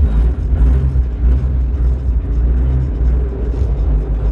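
Nissan 200SX S12 running on the road, a steady low engine and road rumble as heard inside the car while driving.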